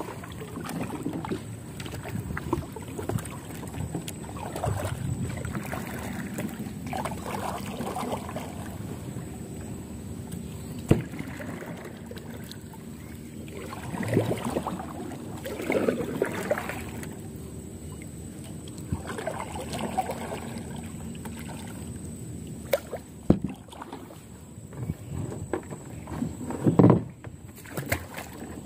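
Kayak paddle strokes: the blades dip and pull through calm water with a swishing splash every few seconds. A few sharp knocks stand out, the loudest about eleven seconds in and near the end.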